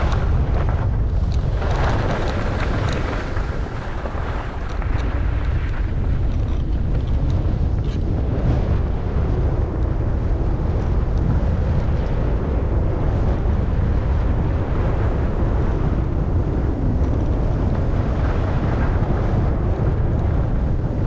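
Wind buffeting the microphone of a skier moving downhill, a steady low rumble, with the hiss of skis sliding over snow.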